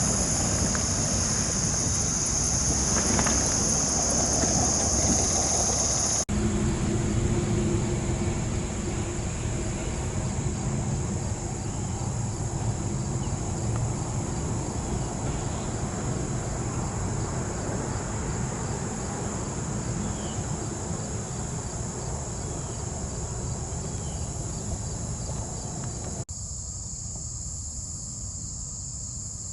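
Steady, high-pitched chorus of insects over a low, even rushing noise. The sound changes abruptly twice, about six seconds in and near the end.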